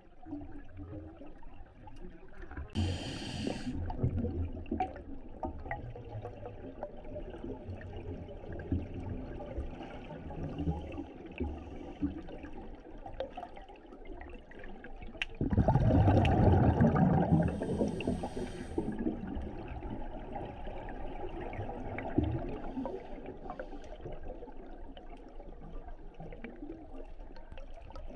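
Scuba diver's breathing recorded underwater: a steady low rumble, short hisses of the regulator on the inhale, and a loud rush of exhaled bubbles about halfway through that lasts a few seconds.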